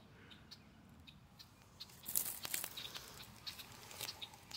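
Faint rustling and scattered clicks, busier from about two seconds in, as the phone is moved among grass stems at the water's edge.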